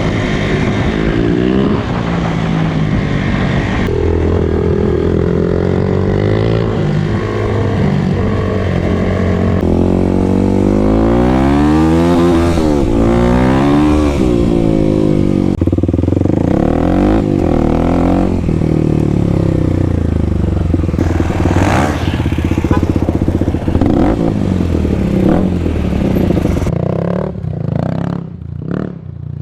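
Kawasaki KLX300 single-cylinder four-stroke engine running through an aftermarket Barker's exhaust, its pitch rising and falling with the throttle. Several joined segments, with a few short sharp knocks near the end.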